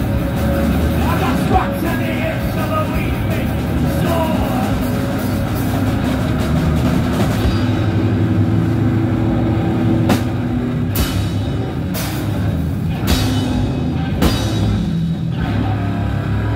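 Live rock band playing electric guitars over a drum kit. In the second half, strong drum and cymbal hits land about once a second.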